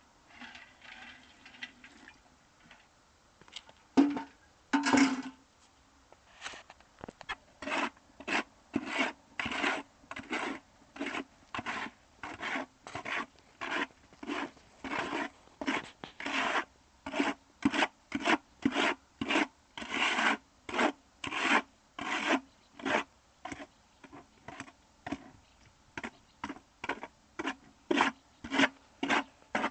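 Two sharp knocks about four and five seconds in, then steady back-and-forth scraping strokes of a hand tool on a rough surface, about two strokes a second.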